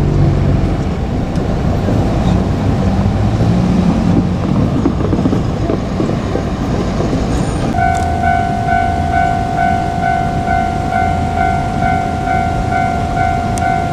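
Low rumble of a train running near a Japanese railway level crossing. About eight seconds in, the crossing's electronic warning bell starts ringing, about two strikes a second, signalling that a train is approaching.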